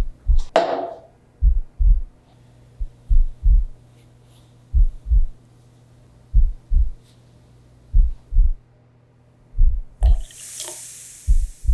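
Heartbeat sound effect: slow paired low thumps, lub-dub, about every one and a half seconds, over a steady low hum. A brief rushing hiss comes near the end.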